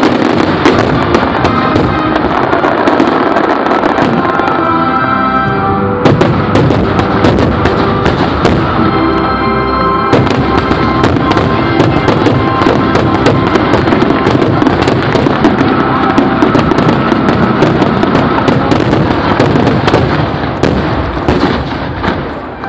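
Fireworks bursting in a dense, continuous barrage of cracks and bangs over the show's music soundtrack. The bursts thin out and the sound dies away near the end.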